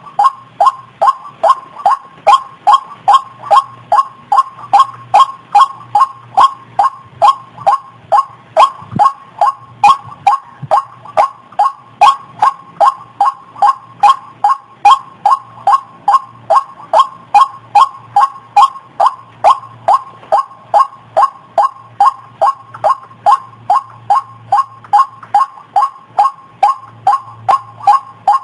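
White-breasted waterhen calling: a steady, monotonous series of short, dropping notes repeated about twice a second.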